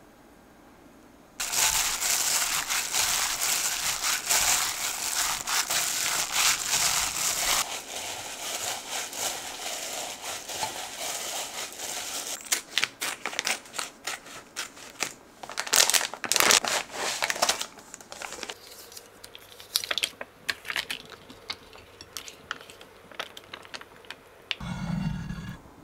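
Raw ground-meat filling with chopped garlic chives and leek being kneaded by hand in a glass bowl: wet squishing and crackling that starts about a second and a half in, dense and loudest for the first several seconds, then in uneven strokes.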